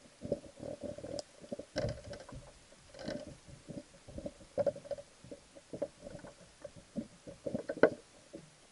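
Irregular muffled knocks and thuds picked up inside an underwater action camera's waterproof housing as it is bumped and jostled in the water, the loudest knock near the end.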